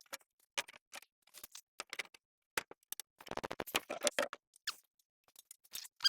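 A series of light, irregular clicks and taps, with a quicker run of small knocks about halfway through, typical of hand tools and door parts being handled.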